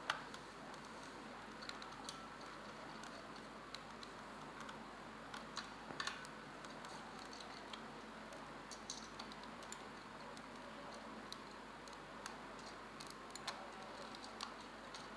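Faint, scattered small clicks and scrapes of a tool prying the front feet off the underside of a Logitech G Pro X Superlight mouse, over a steady low hiss.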